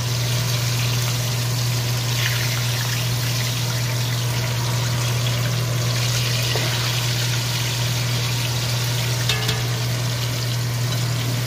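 Breaded mackerel fillets deep-frying in hot oil, a steady bubbling sizzle. A steady low hum runs underneath.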